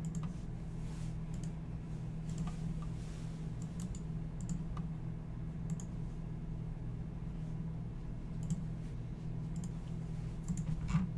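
Scattered single clicks from a computer mouse and keyboard, one every second or two, over a steady low hum.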